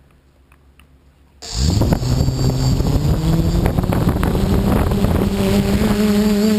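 Brushless motors and propellers of a 450-size quadcopter spinning up suddenly about a second and a half in, then running loud with several whining tones that climb in pitch as it lifts off. Heard from the quad's onboard camera, with prop wash buffeting the microphone.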